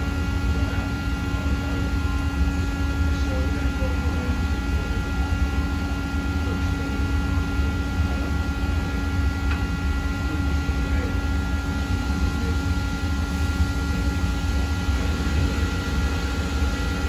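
Mori Seiki NL2500MC CNC lathe running its live-tooling turret spindle at a steady speed: an even machine hum with a whine of several steady high tones.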